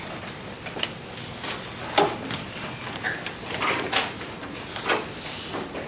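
Chalk tapping and scraping on a chalkboard while a drawing is made: irregular short taps and strokes, the sharpest about two, four and five seconds in.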